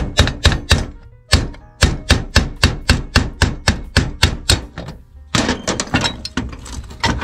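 A quick run of hard knocks, about four a second, with a brief pause about a second in, then a faster patter of lighter taps near the end.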